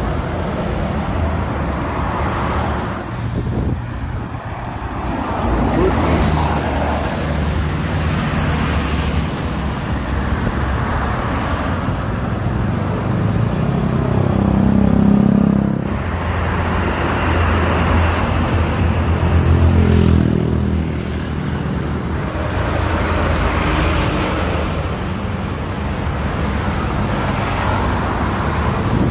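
Road traffic passing one vehicle after another: tour buses, cars and motorcycles, their engine and tyre noise swelling and fading with each pass-by.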